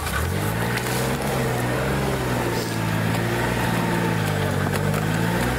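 All-terrain vehicle engine revving up right at the start and holding high revs under load, its pitch wavering, with a brief dip near the end before it climbs again.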